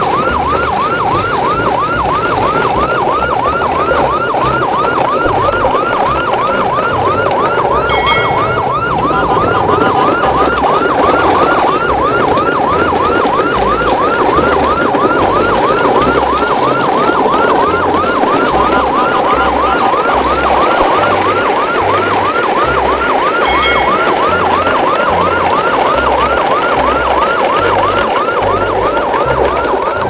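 A fast, repeating siren wail sweeping up and down about three times a second without a break, over a low pulsing thump. A brief high chime sounds twice, about a quarter of the way in and again past the three-quarter mark.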